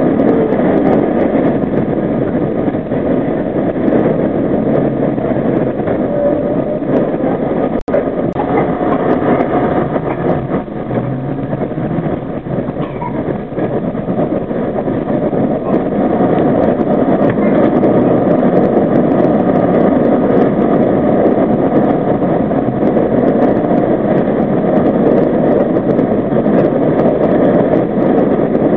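R32 subway train running through a tunnel: a loud, steady rumble of wheels on rail and running gear. The sound cuts out for an instant about eight seconds in.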